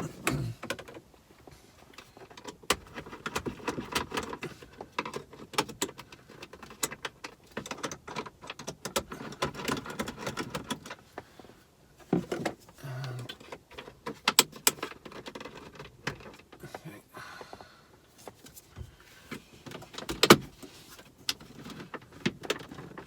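Hand work on a car's plastic centre-console trim: the rubber mat being lifted out, screws undone and the trim prised loose. It comes through as irregular clicks, knocks, scrapes and rustles of plastic and tools.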